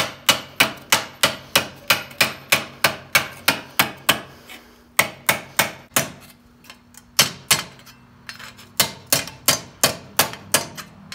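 A small hand hammer striking the edge of a sheet-metal armor helmet held over a steel stake, working the rolled-over edge. It strikes steadily about three times a second, each blow ringing briefly. A short break comes about four and a half seconds in, and after it the strikes come more unevenly.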